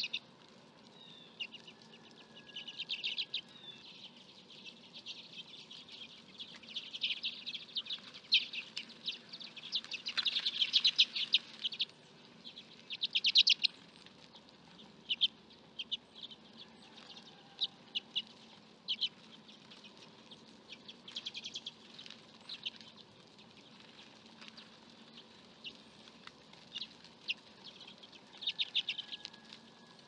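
Common redpolls calling: quick, dry trills of short chet notes in repeated bursts, loudest a little past a third of the way in.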